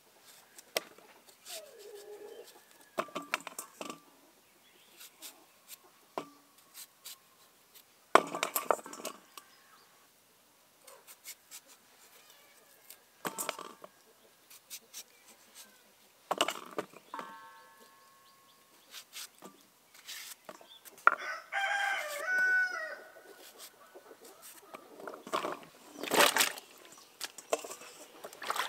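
A rooster crowing once, about three quarters of the way through, over scattered short knocks and clatter.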